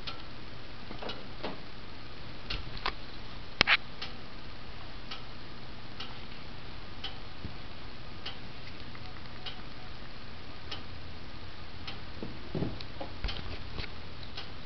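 Irregular light clicks and taps, with two louder sharp knocks close together about three and a half seconds in, over a faint steady low hum.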